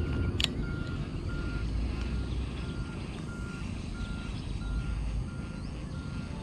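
Low rumbling noise with a single sharp click about half a second in. Over it, a short, steady high note repeats at an even pace, about three times every two seconds.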